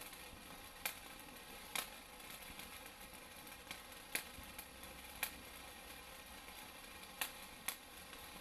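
A "Raindrops" ground fountain firework spraying sparks with a faint, steady hiss, broken by about six sharp pops spread irregularly through it.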